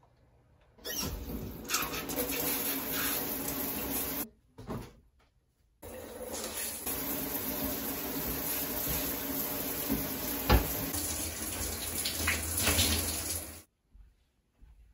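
Shower water running from a handheld shower head: a steady spray, heard in two stretches with a break of about a second and a half between them, cutting off abruptly near the end.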